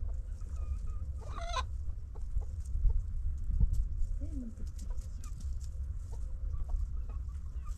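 Chickens clucking, with one louder, longer call about a second and a half in and scattered shorter calls after it, over a steady low rumble.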